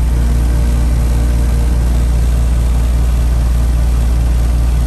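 ICP 3-ton R22 heat pump outdoor unit running shortly after startup, its compressor and condenser fan making a steady low hum.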